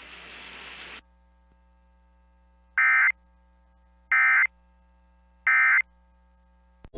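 Emergency Alert System end-of-message signal on NOAA Weather Radio: three short bursts of warbling digital data tones, about 1.3 s apart, that mark the end of the severe thunderstorm warning. The bursts come after about a second of faint radio hiss.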